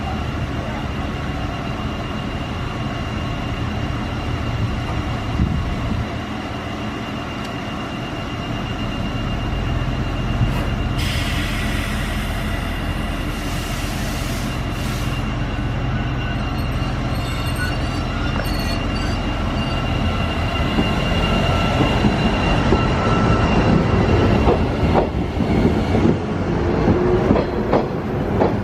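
Electric local train running at a station, with a steady high-pitched squeal. About a third of the way in comes a hissing burst lasting about four seconds. The sound grows louder toward the end with clicking and clattering from the wheels over the rail joints.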